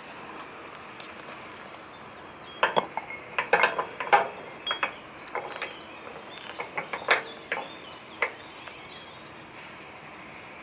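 Irregular sharp metallic clinks and knocks from the steel support leg of a cable drum trailer being handled and adjusted by hand, a run of them lasting about five seconds that starts a few seconds in.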